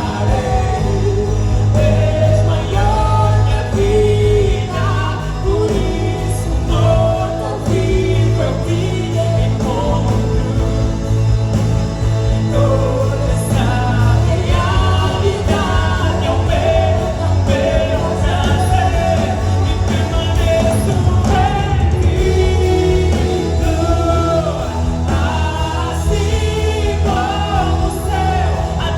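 Live gospel music: singing, with a choir, over a steady band accompaniment.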